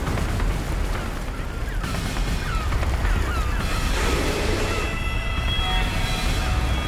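Heavy surf and churning water in the shallows, with short chirping calls rising and falling for a few seconds and a music score with held high notes coming in about halfway.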